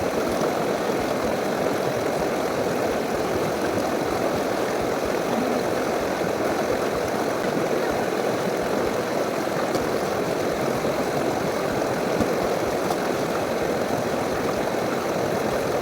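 Steady rush of running water, an even wash of sound that does not change.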